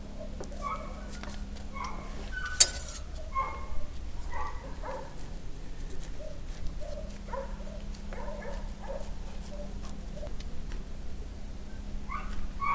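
Short animal calls repeating irregularly over a steady low hum, with one sharp click about two and a half seconds in.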